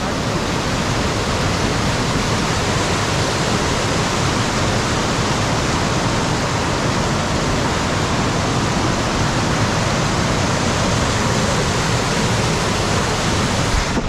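Tall single-drop waterfall crashing down close by, a steady, unbroken rush of falling water.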